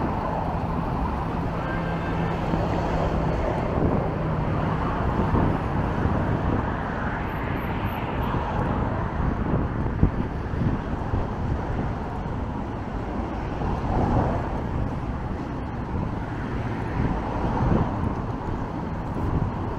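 Road traffic on a busy multi-lane road, a steady wash of passing cars and lorries, with a low steady engine hum through the first five seconds.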